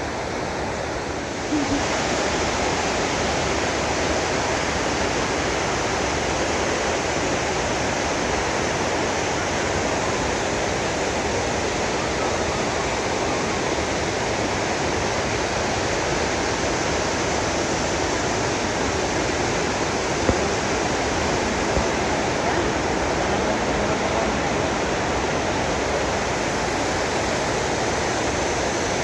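Steady rush of fast-flowing water, a stream or small waterfall running through a cave. It gets suddenly louder about a second and a half in.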